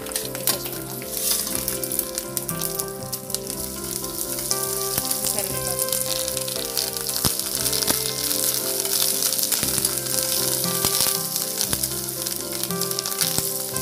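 Tempering sizzling in hot oil in a kadai: peanuts, dried red chillies, garlic and curry leaves frying with a steady hiss while being stirred with a steel spoon.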